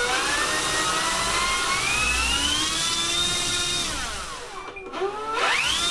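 E-flite Draco's electric brushless motor and propeller whining as the throttle is opened, the pitch climbing steadily for about three and a half seconds, holding briefly, then falling away as the throttle comes back. Near the end it surges up again sharply.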